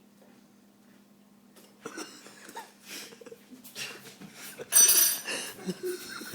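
Person eating cold cereal: irregular chewing, mouth noises and spoon clinks starting about two seconds in, with a loud sharp burst near the end.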